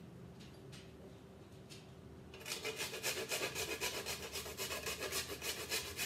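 Whole nutmeg grated on a rasp grater: quick, even scraping strokes, about five or six a second, starting a little over two seconds in.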